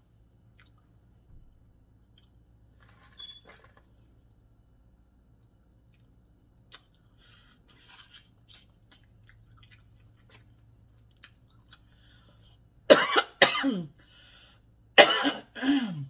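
A woman coughing hard, two quick coughs at a time, twice about two seconds apart, near the end; before them only faint small mouth and eating sounds.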